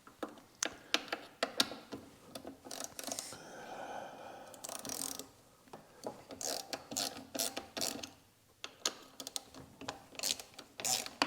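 Metal hand tools clicking and rattling in a long series of short, sharp clicks, with a denser ratcheting stretch partway through, as work begins on a brake caliper.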